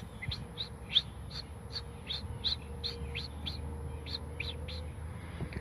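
Common starling call: a quick series of short, high chirps, about three a second.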